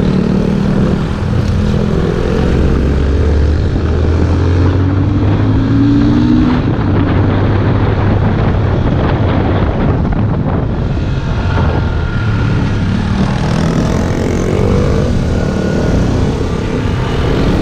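Motorcycle engine running under way, its pitch rising and falling with the throttle, climbing about four seconds in and again near the end.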